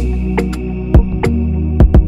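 Background music with a deep held bass and drum hits.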